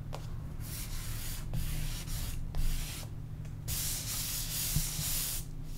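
A hand rubbing soft pastel into paper to blend the strokes: about four sweeping passes of dry, hissy scraping with short pauses between.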